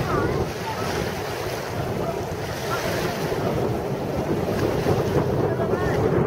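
Steady, distant jet roar from the Frecce Tricolori's Aermacchi MB-339 formation passing overhead, mixed with wind buffeting the microphone. A few faint high chirps sound over it.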